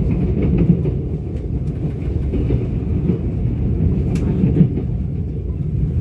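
Passenger train running on the rails, heard from inside the carriage: a steady low rumble with a few faint clicks.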